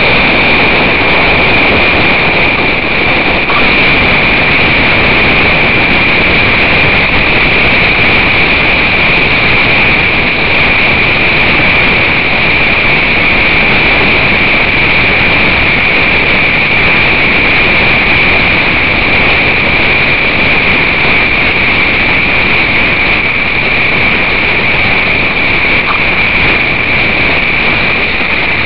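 Loud, steady rush of wind and water over a bow-mounted camera on a racing trimaran's hull at high speed, with a constant high-pitched whine running through it.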